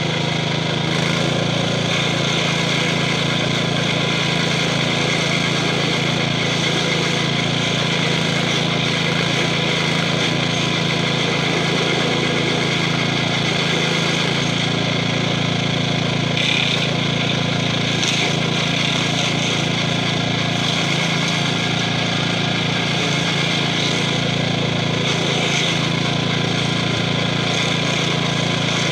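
Gravely 5640 walk-behind tractor's 12 hp Kohler single-cylinder engine running steadily while its stump-grinder cutter wheel chews into a tree stump.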